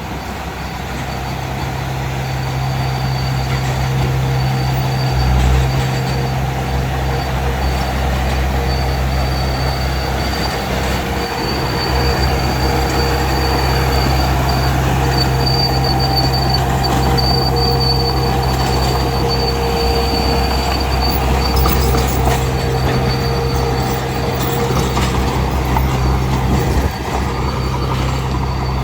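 Heavy earthmoving machine working crusher-run: a diesel engine running steadily under load with a thin, high steady whine and metallic squeal on top.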